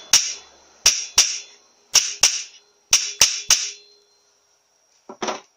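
Hammer tapping on a bush driver to seat a new case bush in a cast-iron Powerglide transmission case: about eight sharp metallic taps in twos and threes, each ringing briefly, stopping about four seconds in.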